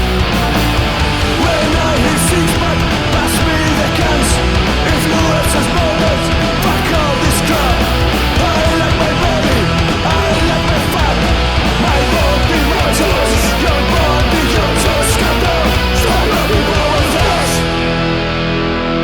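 Punk rock band recording: distorted electric guitars, bass and drums playing together. About seventeen seconds in the drums and cymbals drop out, leaving the guitars holding sustained chords.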